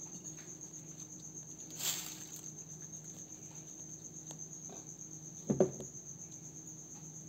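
Crickets chirping in a steady, fast high trill, over a low steady hum. A short rustle comes about two seconds in, and a brief louder sound about five and a half seconds in.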